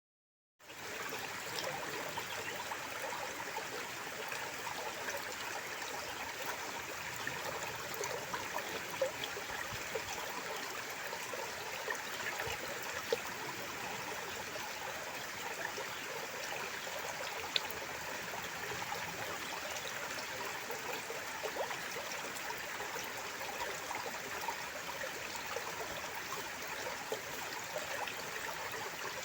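Stream water running and trickling steadily, starting about half a second in.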